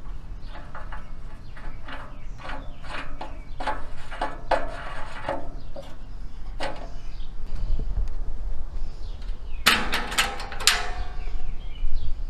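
A string of knocks and clunks as a log and parts are handled on a homemade sawmill, with a louder metallic clatter about ten seconds in.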